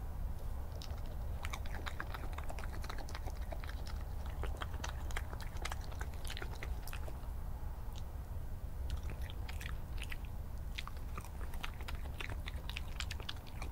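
A badger feeding close to the microphone, crunching and chewing food in quick, irregular bites with short pauses, over a steady low hum.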